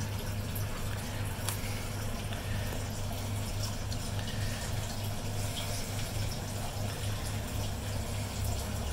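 Aquarium water running steadily, with a low pump hum underneath.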